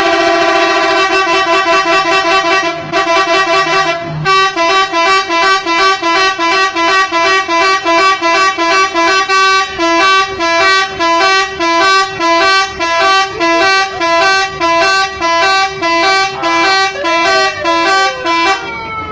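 Telolet musical air horn on a Safari Dharma Raya bus: a loud multi-tone chord held for about four seconds, then a quick tune of alternating notes pulsing about twice a second. Near the end the notes slide down in pitch.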